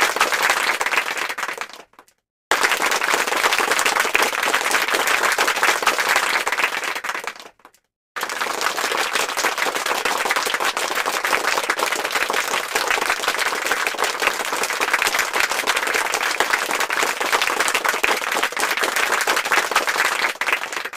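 Applause sound effects: a crowd clapping in three separate takes. The first fades out about two seconds in, the second about seven seconds in, and the longest fades out at the end.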